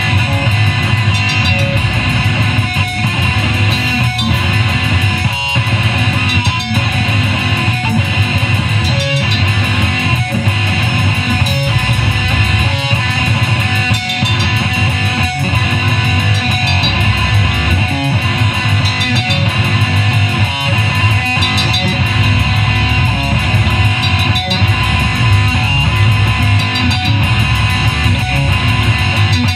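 Live rock band playing loud, dense music: electric guitar and bass guitar over a drum kit keeping a steady beat.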